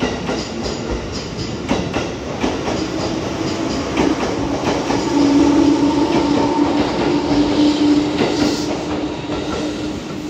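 JR Kyushu 415 series electric multiple unit pulling out and passing close by, its wheels clicking over the rail joints. A steady low hum from the traction motors rises slightly in pitch as the train gathers speed.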